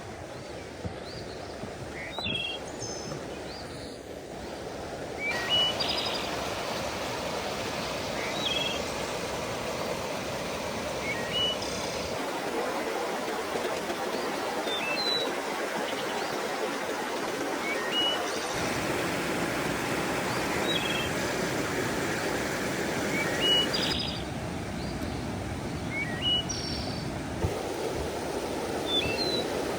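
Mountain stream rushing steadily, louder from about five seconds in and shifting abruptly a few times, with a small bird giving short, high chirps every two to three seconds.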